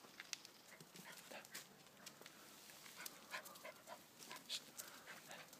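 Small dog panting faintly, with scattered short scuffs and clicks.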